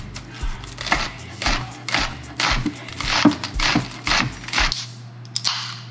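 Sharp knocks with low thuds, repeating evenly about twice a second, that stop abruptly about five seconds in, followed by a single click.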